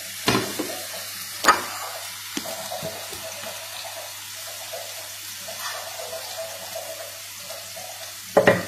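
Onion and garlic sizzling in olive oil in a frying pan, a steady hiss, with a few knocks and a louder clatter near the end.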